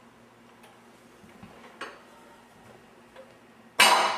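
Cabinet hardware being worked: a few faint clicks and clinks, then a cabinet door shutting with a loud knock near the end.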